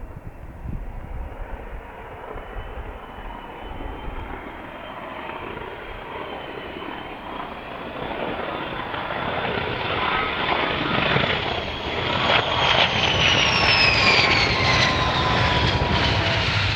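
Aircraft engines growing steadily louder as the aircraft approaches and passes close by, with a high whine that falls in pitch in the last few seconds.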